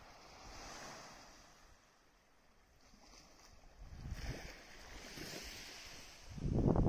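Small waves washing softly onto a sandy beach in gentle swells. Near the end, wind starts buffeting the microphone with loud, gusty rumbling.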